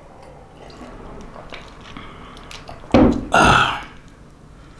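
A man sips and swallows from a glass mug, faintly. About three seconds in there is a sudden low thump, followed by a brief, louder breathy sound.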